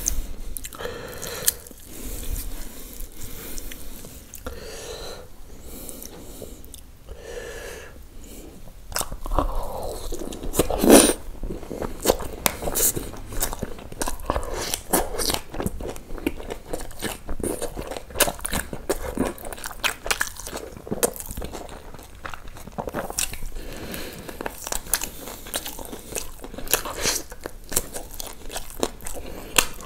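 Close-miked eating of tandoori chicken: a person biting and chewing, with many sharp crunches that come thicker from about nine seconds in. The loudest bite falls about eleven seconds in.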